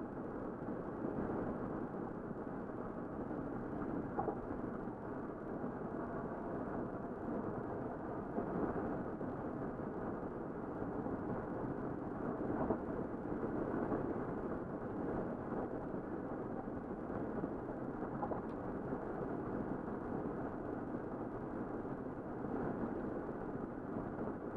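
Car cruising at highway speed, heard from inside: steady road and tyre noise with a few light knocks.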